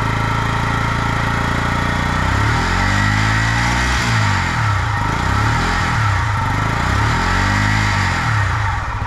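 Yamaha YZF R125's single-cylinder four-stroke engine idling warm, then revved with the throttle about four times, each rev rising and dropping back to idle. It is running again after its rebuild.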